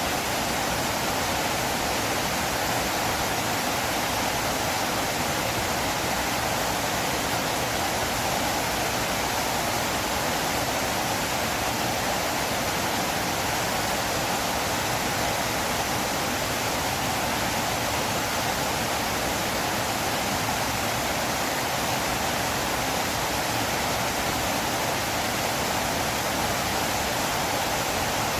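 River water flowing: a steady, unbroken rushing with no changes.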